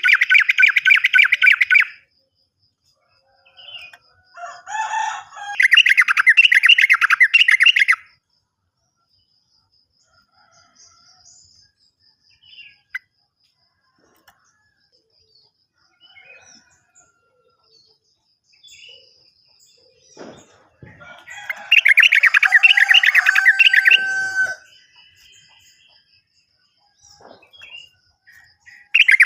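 Yellow-vented bulbul (trucukan) song: fast rolling trills in three bursts of about two to three seconds each, with long pauses between that hold only faint scattered chirps.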